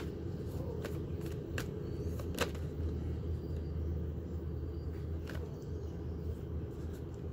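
A deck of tarot cards being shuffled by hand, with a few short card snaps, over a steady low outdoor rumble.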